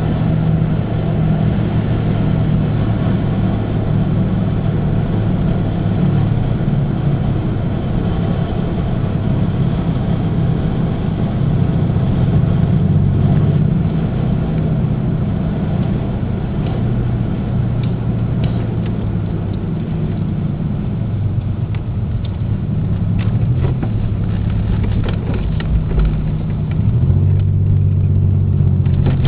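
A motor vehicle's engine running steadily with a low hum, and a few faint clicks in the second half.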